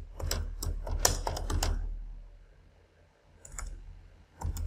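Typing on a computer keyboard: a quick run of keystrokes over the first two seconds, a pause, then a few more keystrokes near the end.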